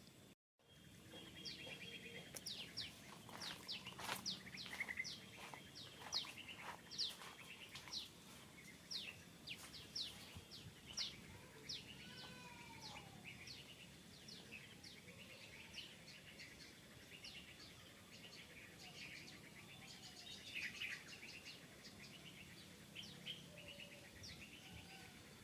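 Birds chirping: after a moment's silence at the start, a long run of short, quick, high chirps that fall sharply in pitch, about two a second, over faint outdoor background noise.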